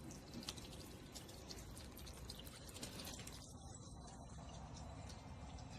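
Water from a small solar birdbath fountain splashing and dripping into the basin: a steady faint trickle with many small drips.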